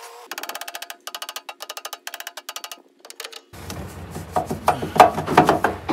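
Ratchet wrench clicking rapidly in several short runs while a nut on the fuel tank's hold-down bracket is backed off. Then come a few loud metallic knocks and rattles near the end.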